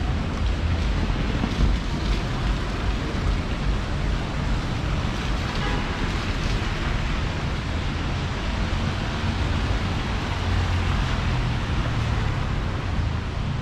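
Steady city street traffic in the rain: a continuous wash of engine rumble and tyres on wet road, with no single vehicle standing out.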